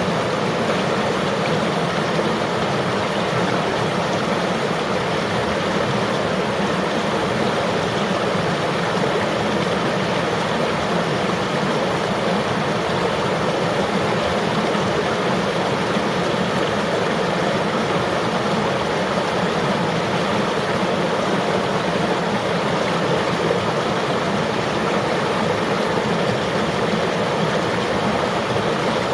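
River water flowing over rocks: a steady, even rushing with no change throughout.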